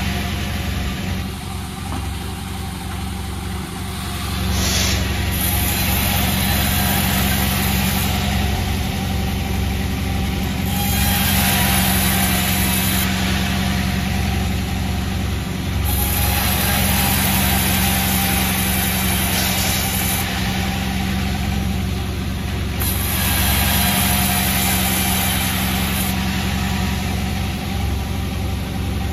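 Sawmill machinery running: a steady engine drone under a hissing cutting noise that swells and fades in stretches of a few seconds.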